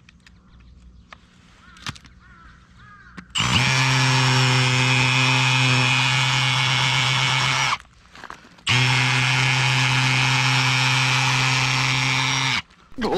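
Cordless drill running at a steady speed, driving a screw-in steel tent peg through a 13 mm socket into crushed-stone gravel. It starts about three and a half seconds in, runs for about four seconds, stops briefly, then runs again for about four seconds.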